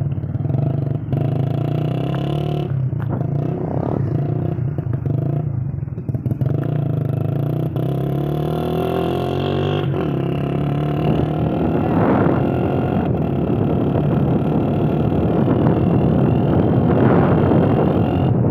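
Motorcycle engine running, its note dipping and then climbing again as it changes speed, a little louder in the second half.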